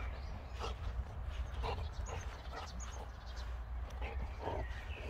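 A brindle boxer dog making a few short, faint sounds about a second apart as he mouths a ball, over a steady low rumble.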